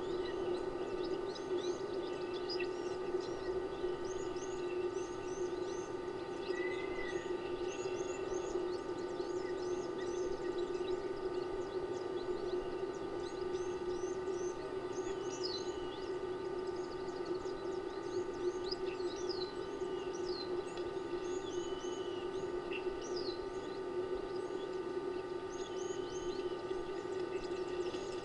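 Many small birds chirping and whistling, with short calls overlapping throughout, over a steady low hum.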